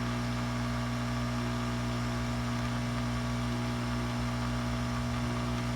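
Hot air rework station's blower running steadily, a constant hum with an airy hiss.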